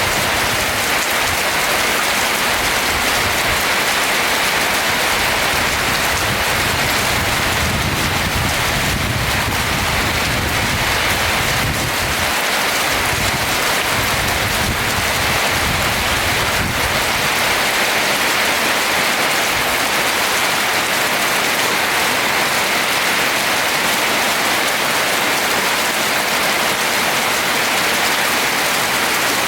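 Steady rain falling on a roof, an even patter throughout, with a low rumble underneath that fades out a little past halfway.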